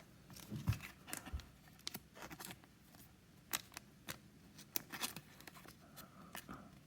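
Faint, scattered clicks and brushing rustles of trading cards being handled and set down on a table.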